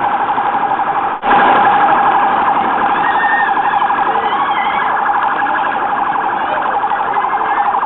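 Electronic alarm or siren sounding a steady, fast-pulsing tone, cut off for an instant about a second in.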